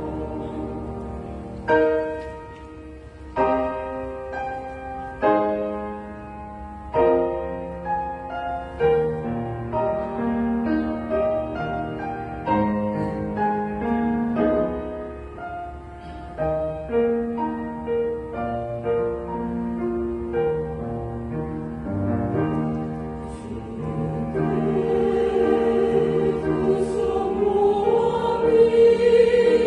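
Church choir singing an anthem with piano accompaniment. Sharply struck piano chords stand out through the first several seconds. About three-quarters of the way through, the choir swells louder and holds long notes.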